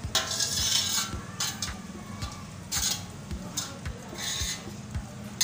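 Leftover spice marinade being scraped off a metal plate into a cooking pot: repeated rasping scrapes with a few light clinks of metal on metal.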